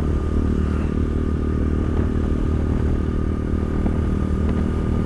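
A motor vehicle engine running steadily while driving: a constant low drone with no change in pitch.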